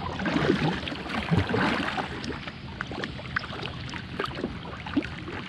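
Kayak paddle strokes: the double-bladed paddle dips and splashes into the lake on alternate sides, loudest in the first two seconds.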